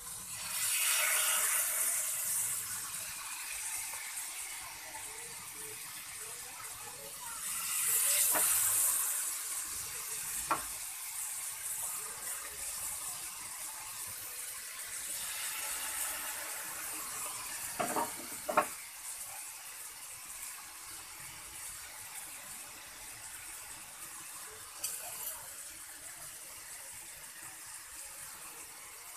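Marinated chicken pieces sizzling in oil on a hot tawa over high heat, the sizzle swelling each time another piece is laid down: about a second in, around eight seconds and around sixteen seconds. A few sharp clicks of tongs against the griddle.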